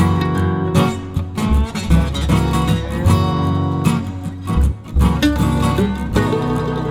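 Background music led by acoustic guitar strumming, with a steady beat.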